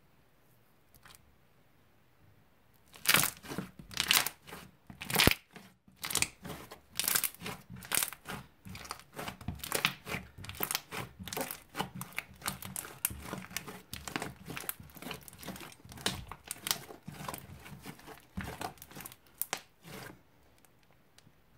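Thick blue slime squeezed and kneaded by hand, giving a dense run of sharp crackling clicks and wet pops. It starts about three seconds in and stops just before the end.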